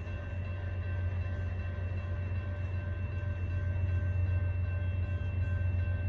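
Railroad grade-crossing warning bell ringing in an even repeating pattern over the low steady rumble of an approaching CSX freight's diesel locomotives, which grows slowly louder.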